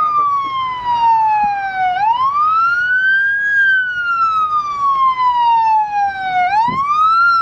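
Emergency vehicle siren wailing. Its pitch slides slowly down and then sweeps quickly back up, about two seconds in and again near the end.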